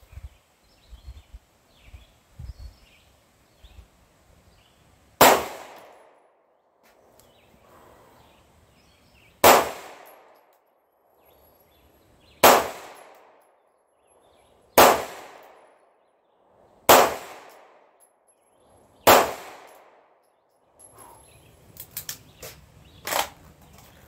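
Six single pistol shots from a Sig Sauer P226, fired one-handed and slowly, each a sharp crack with a short ringing tail, spaced about two to four seconds apart. Light clicks of gun handling follow near the end.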